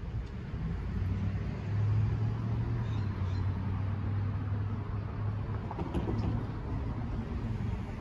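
Road traffic: a motor vehicle's engine hum over low street rumble. The hum builds about a second in, holds steady, and fades near the end.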